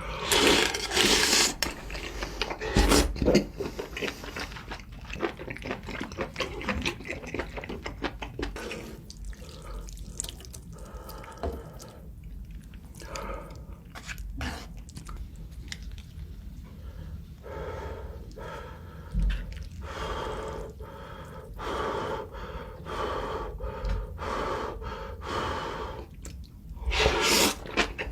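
Close-miked eating of spicy seafood ramen: loud slurps of noodles and broth near the start, about three seconds in and near the end, with wet chewing and mouth sounds between.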